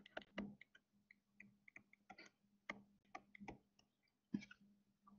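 Faint, irregular ticks and taps of a stylus on a tablet screen during handwriting, over a faint steady low hum.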